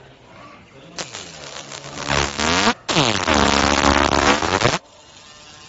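Automatic fiber laser marking machine running its cycle: a machine whine in two runs, its pitch sweeping down and back up. The first run starts about a second in, the second follows at once and cuts off suddenly near five seconds.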